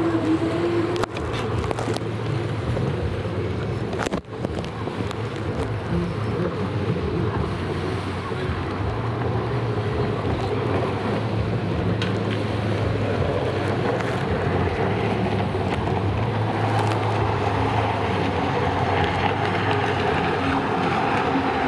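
Racing jet skis (personal watercraft) running at speed: a steady engine drone with water spray, briefly dropping away about four seconds in.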